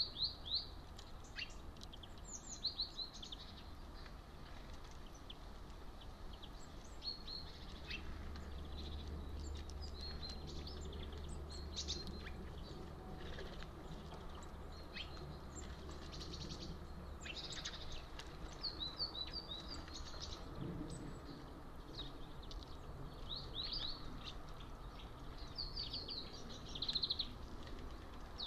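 Small songbirds chirping, with short high calls coming in scattered clusters, over a steady low background hum.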